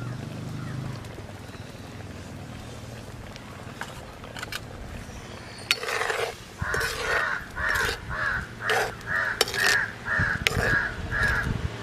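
A crow cawing in a fast, even series, about three caws a second, starting about halfway through.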